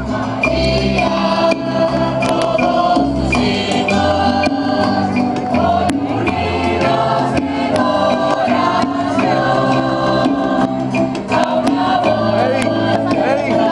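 Religious choral music played loud through a large loudspeaker stack: a choir sings a hymn over held notes and a repeating bass line.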